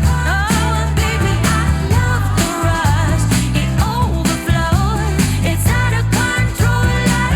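Pop song with a sung melody over heavy bass, played back through Audio-Technica ATH-M50xBT wireless headphones.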